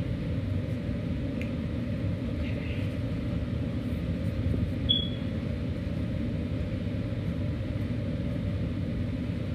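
Steady low background rumble, with one short high chirp about five seconds in.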